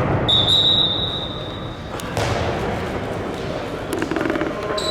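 Referee's whistle blown in one long blast of about a second and a half, then hall noise with thuds of a bouncing handball; a second whistle starts near the end.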